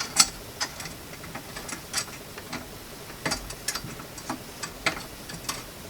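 Irregular light clicks and knocks from the parts of a small hand-cranked grain mill being handled and fitted together, about a dozen sharp taps spread unevenly, with a cluster a little past three seconds in.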